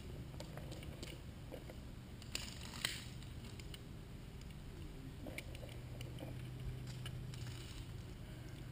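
Faint, scattered mechanical clicks and small knocks of a handgun being handled and checked for a load, with two sharper clicks about two and a half and three seconds in.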